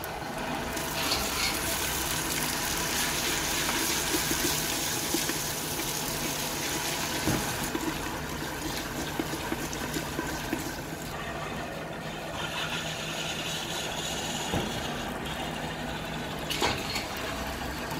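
Chopped tomatoes sizzling in hot oil in a clay cooking pot, loudest for the first several seconds after they go in, then settling to a softer hiss. A wooden spatula stirring the pot knocks now and then.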